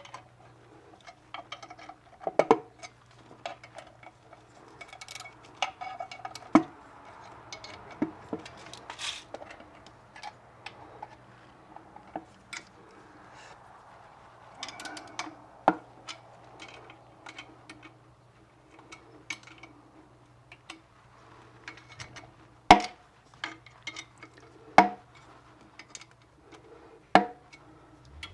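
Metal tools and parts clinking and knocking during hand work on an electric motor, irregular small clicks with several sharp knocks, three loud ones a couple of seconds apart near the end, over a faint steady hum.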